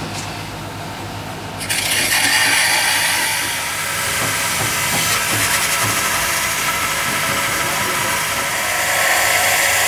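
Angle grinder with an abrasive disc grinding the cast iron inside a tractor transmission center housing, a steady loud hiss that starts about two seconds in, as the broken area is ground back for repair.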